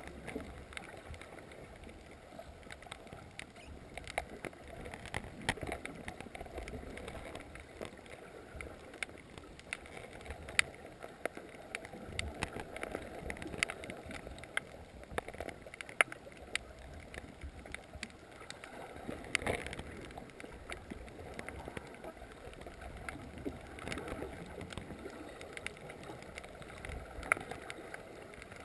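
Underwater reef ambience heard through a GoPro's sealed housing: a low, steady water rush with many irregular sharp clicks and crackles.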